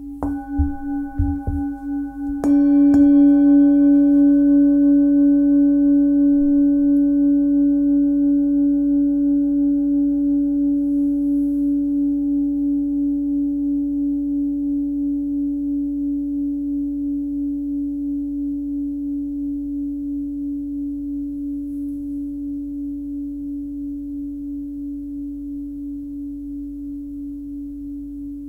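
Tibetan singing bowl, 15.2 cm across, tuned to about 282 Hz (C#). A few soft knocks come in the first two seconds, then a firm strike about two and a half seconds in and a second one just after. It leaves a long ringing note with higher overtones that slowly fades, wobbling steadily in loudness.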